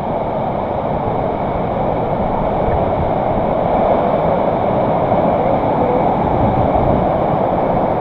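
White water rushing down a rocky river cascade: a loud, steady, unbroken rush.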